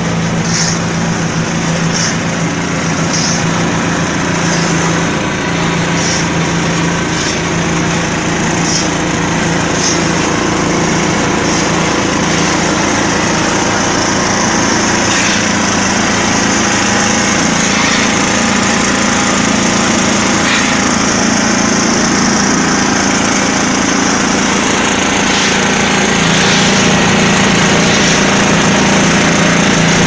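Small diesel engine of a mobile concrete mixer running steadily under load, turning the drum, and growing a little louder near the end. Short shovel scrapes sound repeatedly in the first half.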